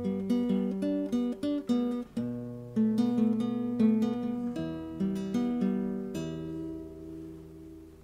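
Outro music on acoustic guitar: a run of plucked notes and strummed chords, then about six seconds in a last chord rings out and slowly fades.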